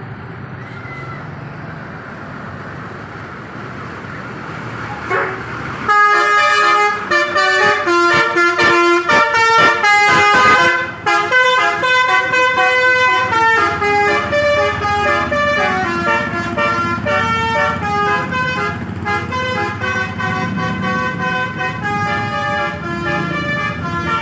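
Telolet bus horn, a set of air horns playing a loud, quick tune of stepping notes from about six seconds in, over a low rumble of the vehicle before it.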